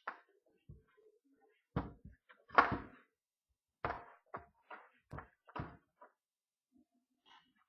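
Irregular knocks and bangs in a pig pen, about seven of them, the loudest about two and a half seconds in, as pigs bump against the metal pen fittings and move over the slatted floor.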